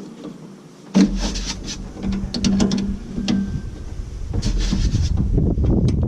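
Metal hand tools clicking and clanking as a wrench is worked on the truck's exhaust bolts, over a low rumble.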